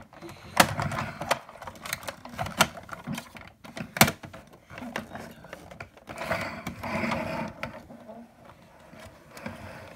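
Hard plastic toy camper van being handled: a run of plastic clicks, knocks and rubbing as its parts are gripped and moved, with two sharp clicks about half a second and four seconds in.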